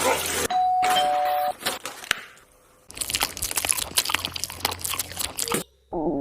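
Doorbell chiming a two-note ding-dong, high then lower, about half a second in. Later comes a couple of seconds of dense crackling noise.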